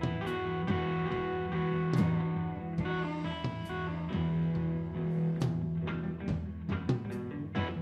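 Live rock played on electric guitar and drum kit: a steady low guitar note rings under a riff while the drums keep time with regular hits and cymbal crashes.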